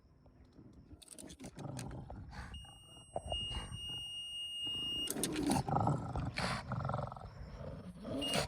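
Scooter horn sounding one steady, high electronic tone for about two and a half seconds, then a short blip of the same tone near the end, amid throaty animal noises from a pug that grow louder in the second half.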